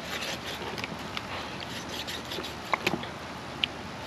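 Knife cutting a fillet from a flathead catfish: soft scraping and rustling, with a few sharp clicks and taps a little under three seconds in and again shortly after.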